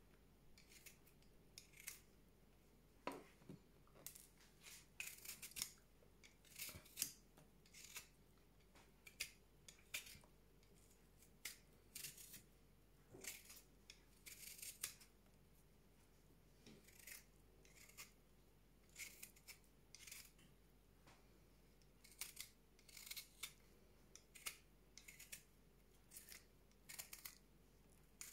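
Faint, short scraping strokes of a metal spoon peeling the skin off fresh ginger root, coming in irregular runs about one or two a second with short pauses.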